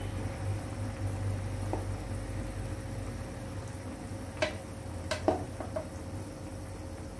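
Pot of chicken and eggplant stew simmering over a steady low hum, with a few sharp knocks of a wooden spoon against the pot about four and a half to five and a half seconds in as eggplant pieces go into the stew.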